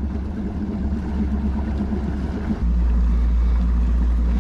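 Bass boat's motor running steadily at low speed as the boat moves along, mixed with wind buffeting the microphone. The low rumble grows louder about two and a half seconds in.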